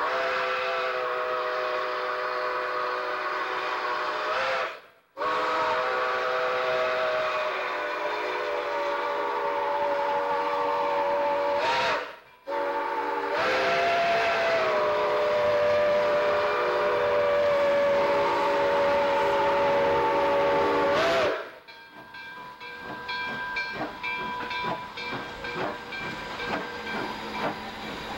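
Chesapeake and Ohio 2765, a 2-8-4 Berkshire steam locomotive, blowing its steam whistle in three long blasts with short breaks between them, several notes sounding at once. After the whistle stops near the end, the passing train goes on with steam hiss and rapid clicking of wheels over the rails.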